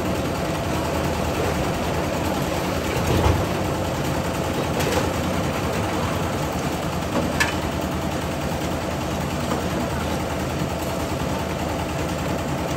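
Engine of a site concrete mixer with a bucket hoist running steadily during a slab pour, with a few short knocks about 3, 5 and 7 seconds in.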